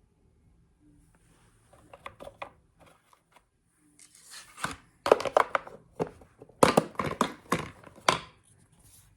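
Dry leaves crunching and crackling in irregular clusters, starting about two seconds in and loudest in the second half.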